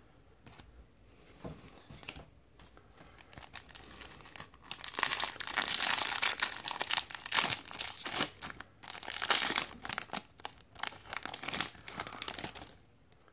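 Foil wrapper of a Topps Platinum football card pack being torn open and crinkled as the cards are pulled out. Near-quiet handling at first, then dense crinkling and tearing from about four seconds in until shortly before the end.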